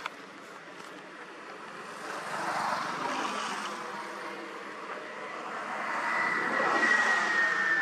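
A passing motor vehicle's engine noise, swelling twice. The second swell carries a high whine that falls slightly in pitch.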